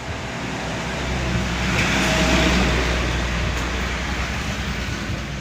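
A motor vehicle passing by. Its rumble and tyre noise swell to a peak about two seconds in, then fade.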